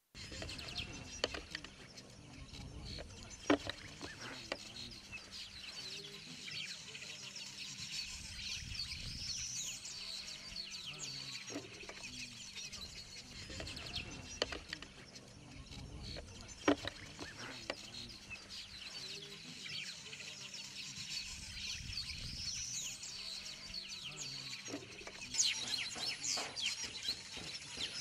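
A busy chorus of many birds calling and chirping at once, with high chirps and now and then a rising whistle. A few sharp clicks and a steady low hum sit underneath.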